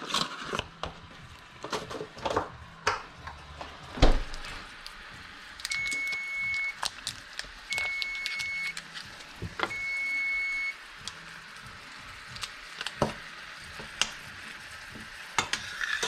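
Electric range timer beeping three times, each beep about a second long and about two seconds apart, over clinking of utensils and pans with a loud knock about four seconds in, and a pan sizzling underneath.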